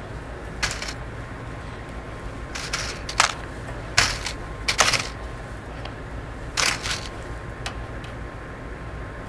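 Paper clips clicking and rattling as they are dropped one at a time into a floating aluminum foil boat and picked out of a plastic tub of clips, about nine or ten irregular light metallic clicks, over a steady low hum.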